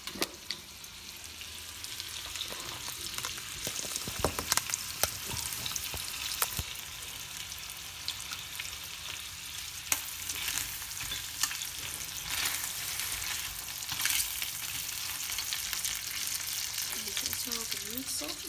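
Chicken thighs sizzling as they pan-fry in a stainless steel skillet: a steady hiss with scattered sharp pops and clicks.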